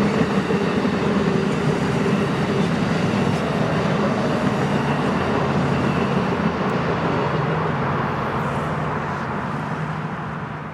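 A train rolling past: a steady, loud rumble of wheels on rail that fades away over the last few seconds.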